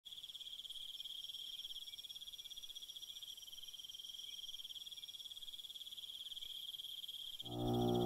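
Night insects trilling: a steady, fast-pulsing, high-pitched chirr. Background music comes in loudly near the end.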